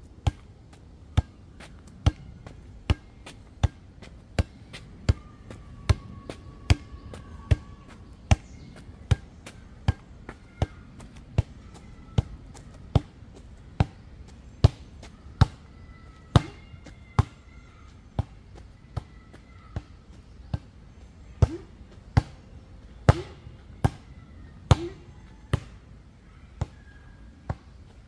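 A basketball on a cord bouncing or being struck in a steady rhythm, one sharp smack about every 0.8 seconds.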